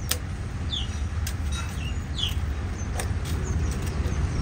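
Small birds chirping: about five short, falling chirps spaced over a few seconds. Under them runs a steady low hum, and there are a few sharp clicks.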